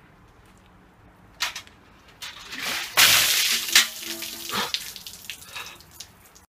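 Ice water dumped from a galvanized metal bucket over a person, with a loud splash about three seconds in. Smaller splashes and drips follow and fade out.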